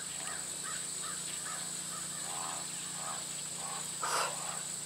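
Outdoor wildlife ambience at dusk: a string of short, faint animal calls, about two or three a second, with a louder call about four seconds in. A steady high-pitched whine runs underneath.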